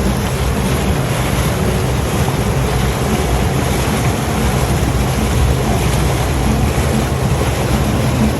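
Boat under way on a Mercury 600 V12 outboard, the engine running at a steady pitch under the rush of water and wind on the microphone.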